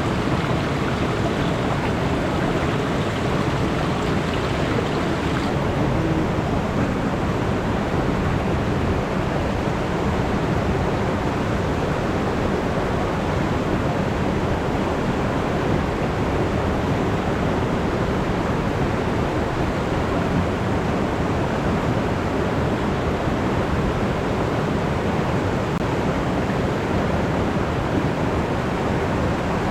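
Alpine river flowing: a steady, unbroken rush of water.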